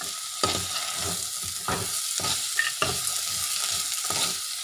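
Steel spoon stirring soaked moong and chana dal through a frying masala in a black kadai: a steady sizzle with scattered scrapes and clinks of the spoon against the pan.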